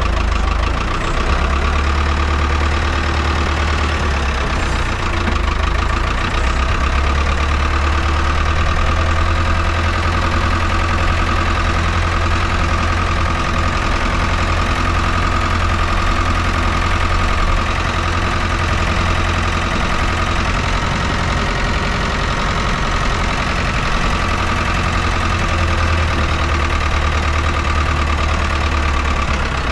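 Farm tractor's diesel engine running steadily, with a steady high whine over it.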